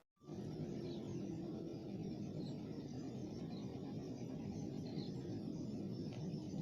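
Steady low outdoor background noise with a few faint, short high chirps in the middle.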